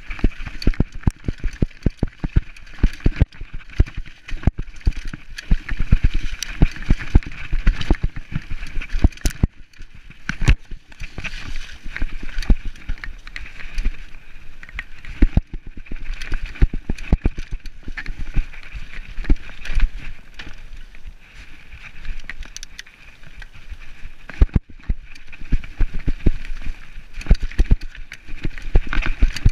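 Mountain bike bouncing fast down a rocky, rooty trail: a constant irregular clatter of knocks and rattles from the bike over rocks, over a steady high hiss of tyres and motion.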